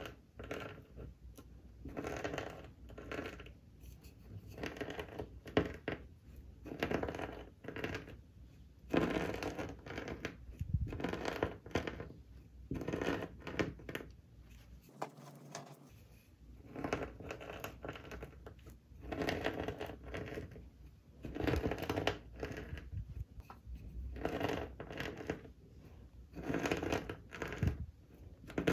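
Wooden rolling pin pressed and rolled back and forth over a plastic bag of brittle flakes, crunching the pieces and crinkling the bag in repeated strokes about one to two seconds apart.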